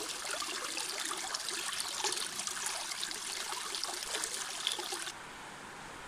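Snowmelt water trickling out from under a snowbank over gravel and pebbles, a close, busy bubbling trickle. About five seconds in it drops to a quieter steady hiss.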